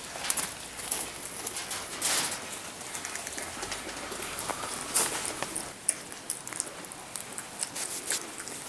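Irregular rustling and crackling of dry straw bedding as a woodchuck moves through it, with sharp clicks now and then.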